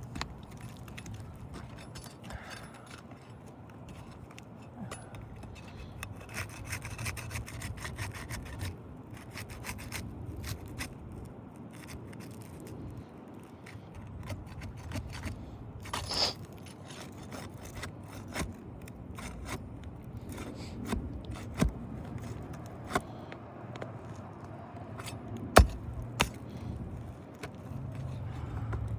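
Flat bar scraping and prying under asphalt roof shingles to free the nails, with many small clicks and taps, a brief squeaky scrape midway and one sharp knock near the end.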